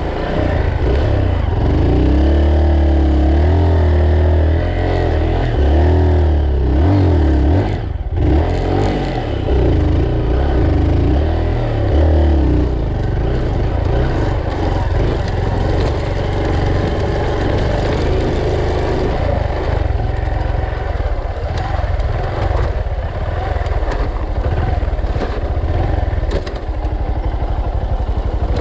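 Honda Bros trail motorcycle's single-cylinder engine running as the bike is ridden over dirt, its pitch rising and falling with the throttle over the first dozen seconds, with a brief dip about eight seconds in, then running steadier.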